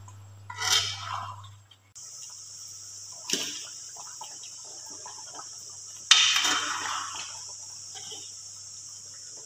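Metal ladle stirring chicken curry in a metal kadai: a scrape within the first second or so, a sharp clink about three seconds in and a louder clank about six seconds in, each followed by scraping, over a steady high hiss.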